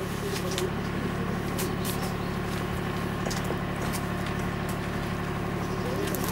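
A steady low engine hum, like a motor idling, with faint scattered clicks over it.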